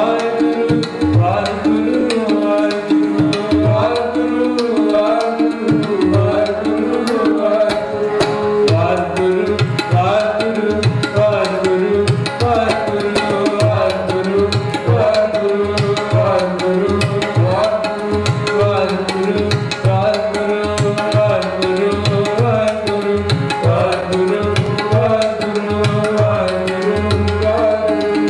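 Sikh kirtan: tabla playing a fast, even rhythm under droning harmoniums, with a male voice singing naam simran over them.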